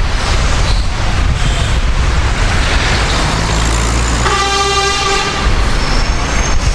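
Steady rumble of a moving vehicle, with a horn sounding once for a little over a second midway.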